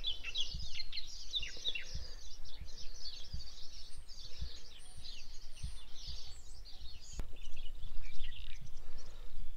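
Small birds chirping and twittering in a busy run of short, quick calls, over a low rumble with soft thumps underneath.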